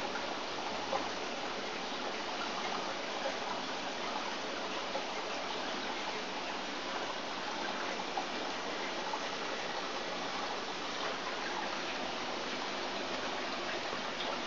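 Water running steadily into aquaponics fish tanks, with a few faint ticks.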